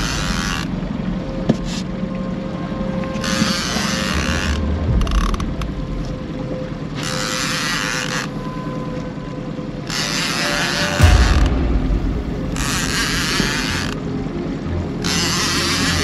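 Fishing reel whirring in bursts of about a second each, repeating roughly every three seconds as line is wound or run off the spool.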